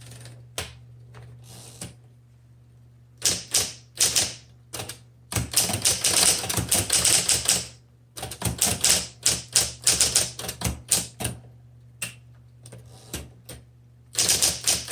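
1961 Smith Corona Electric 5 electric typewriter being typed on fast, in runs of rapid keystrokes with short pauses between, over the steady hum of its running motor.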